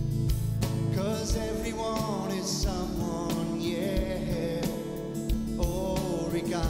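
A song playing: a singing voice carries a melody over a steady beat, with a deep drum hit about every second and a half.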